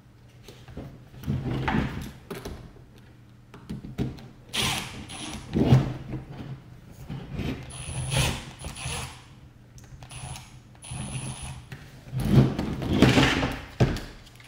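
Red cordless electric screwdriver running in several short bursts, about five, driving screws back into a gel blaster's body, with some handling clatter between runs.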